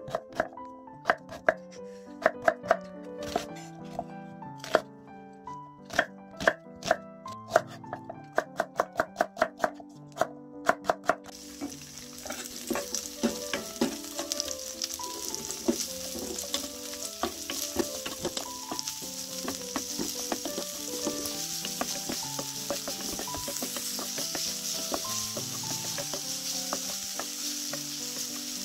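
A kitchen knife chopping sweet potato on a wooden cutting board, a run of sharp knocks that come faster just before they stop. About a third of the way in it gives way to chopped green onion, onion and minced garlic sizzling in oil in a frying pan, stirred with a wooden spatula. Soft background music runs under both.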